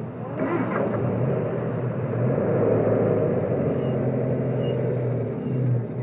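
Motor vehicle engines running with a steady low rumble, as in a traffic jam of tour vehicles.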